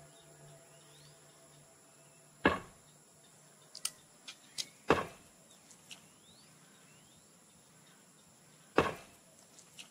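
Three loud, sharp thumps a few seconds apart, with a few smaller clicks between them and faint high chirps. A low steady tone fades out in the first couple of seconds.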